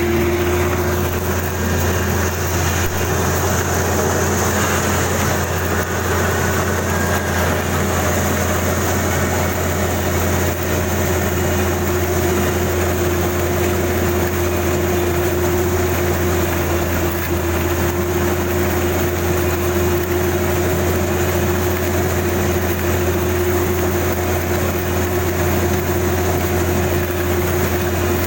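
Kubota DC-35 combine harvester running steadily, its engine drone carrying a constant whine.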